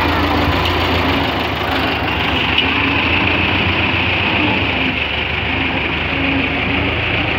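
Belarus 510 tractor's diesel engine running steadily under a loud, even mechanical noise, with a higher whine joining about two and a half seconds in.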